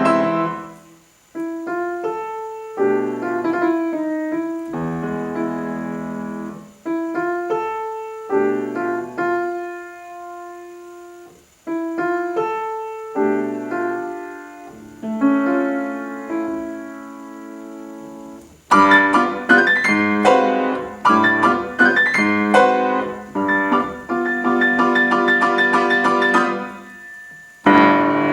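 Solo piano playing: soft, separated phrases with short pauses between them, then loud, dense chords for the last third.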